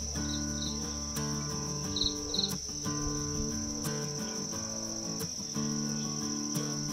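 Insects trilling steadily at a high pitch over soft background music, with a few short high chirps in pairs during the first few seconds.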